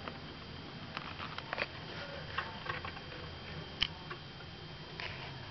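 Scattered light clicks and taps, a few close together and one sharper tap nearly four seconds in, over a steady low hum.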